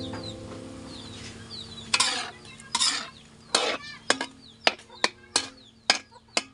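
Spatula stirring squid in a wok, scraping and knocking against the pan in a run of about nine strokes that starts about two seconds in.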